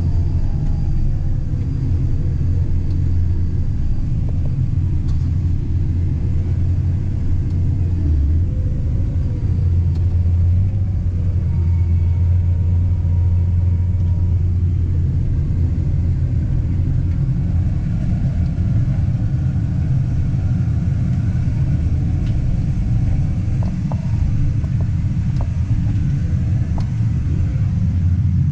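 Farm tractor pulling a fully loaded grain cart, its engine running steadily with a deep, continuous drone.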